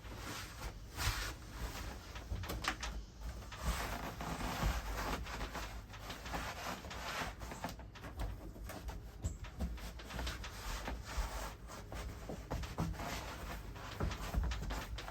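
Rustling, scraping and scattered light knocks and clicks from handling and fitting Bedrug liner pieces in a pickup truck bed.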